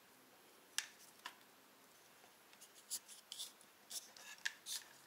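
Faint, scattered small clicks and rustles of hands twisting thin electrical wires together for a solder joint.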